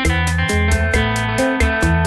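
Instrumental background music with a bass line and a steady, quick beat.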